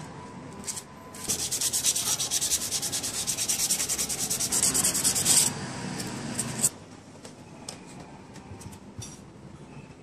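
Rapid back-and-forth rubbing like sanding, about nine strokes a second for some four seconds, stopping abruptly and followed by a couple of sharp clicks and a few light taps.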